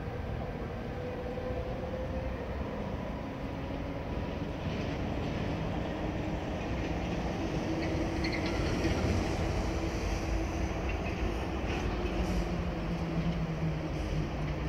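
Electric train running on the line through the station: a steady rumble with a few faint rail clicks. A low hum sets in about twelve seconds in.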